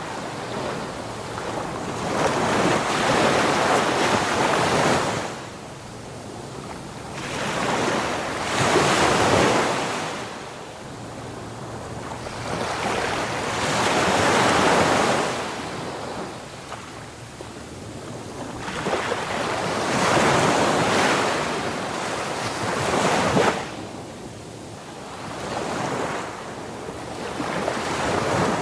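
Ocean surf on a beach: waves breaking and washing up the sand, the rushing noise swelling and falling away about every four to six seconds.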